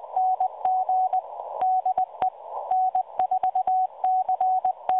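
A 100-watt amateur-radio Morse code (CW) signal on 40 metres heard through a distant shortwave receiver: a single tone keyed in quick dots and dashes over a narrow band of receiver hiss, with sharp clicks at many of the key edges.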